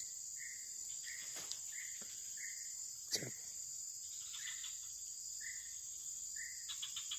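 Evening insect chorus: a steady, high-pitched drone of insects, with a short chirping call repeating about every two-thirds of a second. A single sharp click sounds about three seconds in.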